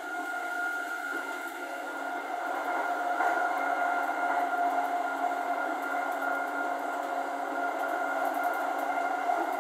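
E231 series 0 commuter train running at speed, heard from inside the carriage: a steady whine over the even running noise of the wheels on the rails.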